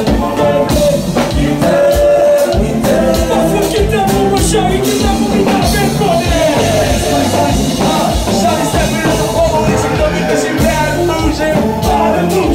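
Live band music with singing over a steady, danceable drum beat.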